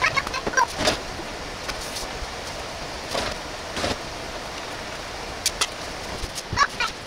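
Canned-tomato sauce simmering in a frying pan: thick bubbles pop now and then over a steady hiss.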